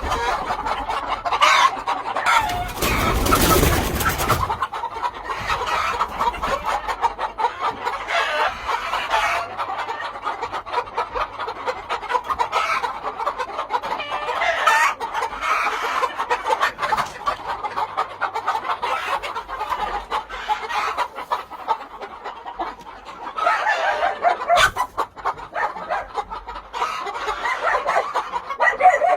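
A yard full of gamefowl: hens clucking and roosters crowing, many birds calling over one another. About three seconds in, a loud rushing noise covers them for a couple of seconds.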